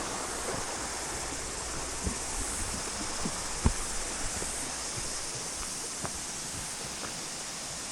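Fast-flowing stream rushing steadily, with a few light knocks, the sharpest about three and a half seconds in.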